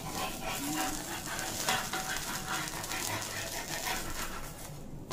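Mung dal chilla sizzling quietly on a tawa while a spatula scrapes and works under its edge to loosen it for flipping.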